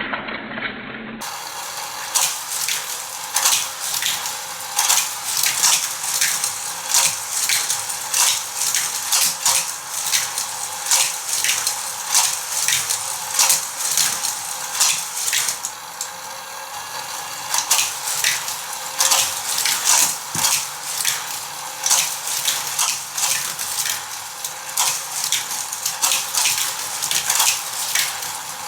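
Hot Wheels plastic track set clattering: a dense, irregular run of clicks and rattles from small die-cast cars and plastic track parts, starting about a second in.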